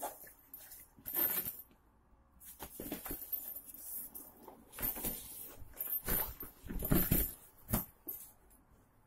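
Fabric of a tactical backpack rustling and scraping as hands open and rummage in its main compartment, in irregular bursts that grow busier towards the end.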